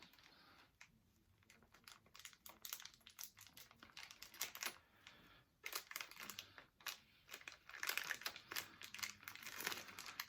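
Plastic toy packaging crinkling and rustling as it is handled, in irregular crackles and clicks that get busier in the second half.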